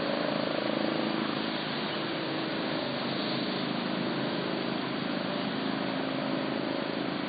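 Steady rush of a flooded river, with motor traffic passing: an engine hum over the water noise, a little louder in the first second.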